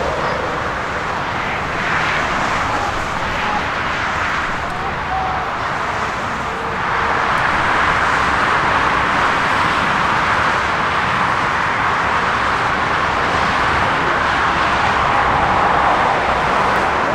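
Steady engine noise, growing louder about seven seconds in and holding there.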